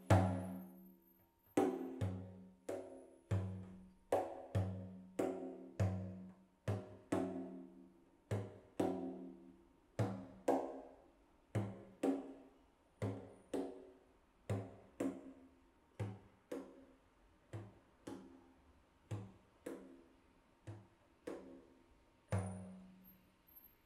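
Large frame drum played with bare hands and fingers: a slow, even run of single strokes, about one and a half a second, each ringing on with a low tone. The strokes grow softer, with one last stronger stroke near the end.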